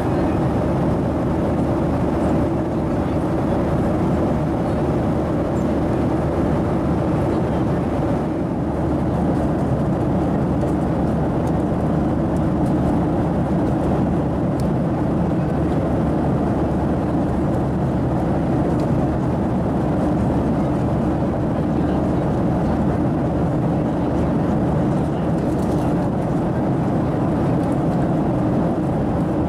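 Steady drone of a Boeing 737-700 cabin in flight: the CFM56-7B turbofan engines and rushing airflow, heard from a window seat, a constant low hum with steady tones in it.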